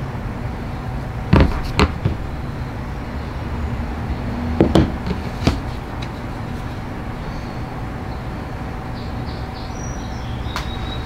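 A few light knocks and clicks of a plastic Briggs & Stratton primer bulb plate being handled and set against the workbench: two about a second and a half in, and two or three near five seconds. A steady background hum runs underneath.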